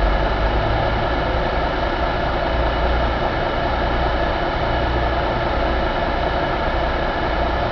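Cummins ISX15 inline-six diesel engine running at a steady speed, a dense, even engine noise with a low rumble underneath.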